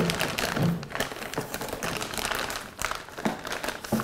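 A large plastic zip bag full of bottles crinkling and rustling as it is pushed down into a cardboard shipping box, with scattered light taps.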